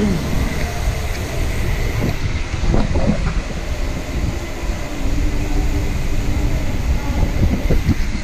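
Wind buffeting the microphone of an action camera on a moving bicycle, with a steady low rumble of the ride that rises and falls in level.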